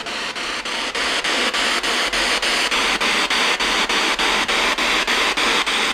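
Radio static from a ghost-hunting spirit box sweeping through stations, a steady hiss chopped into short steps about five times a second, with no voice breaking through.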